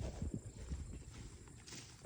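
Footsteps of a person walking over wet ground: a run of soft, low, uneven thuds.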